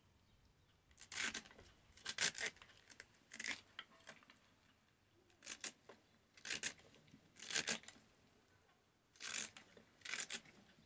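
Raw cabbage being shredded against a fixed curved floor blade (boti). The sound is short, crisp cutting strokes, about eight of them at roughly one a second, with short pauses between.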